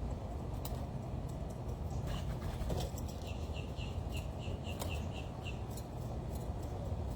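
A small bird chirping a quick run of about nine short, high notes, roughly four a second, over a steady low rumble and scattered light clicks.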